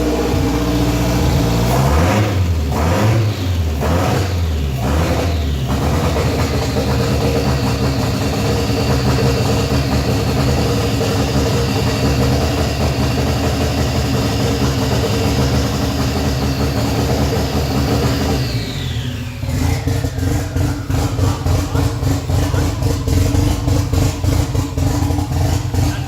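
Freshly rebuilt Nissan SR20DET turbo four-cylinder running with no exhaust and no intercooler piping fitted. The revs swing up and down for the first few seconds, then hold at a steady fast idle. About 18 seconds in they drop into a lumpy, hunting idle.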